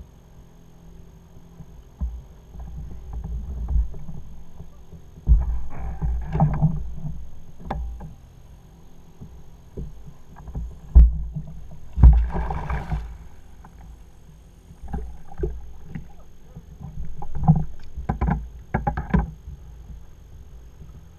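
Water slapping against a plastic fishing kayak, with irregular knocks and thumps on the hull as the paddler shifts and handles gear. The sharpest knocks come about 11 and 12 seconds in, along with a few short bursts of splashing noise.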